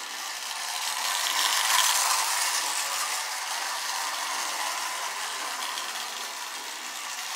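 Postwar Marx electric toy train locomotive running around a loop of tinplate track: its motor and gears whir and its wheels clatter on the rails, a little louder about two seconds in.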